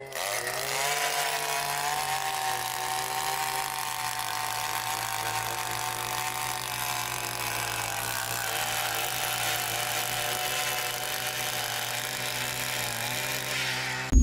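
Takyo TK-2P earth auger's 52 cc single-cylinder two-stroke petrol engine running fast as the auger bores into soil. The steady engine note sags briefly a few times under the load.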